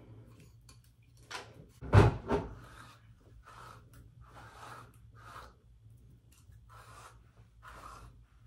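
A comb drawn through a wig's hair in a run of short rasping strokes, one every second or less, after a single sharp knock about two seconds in.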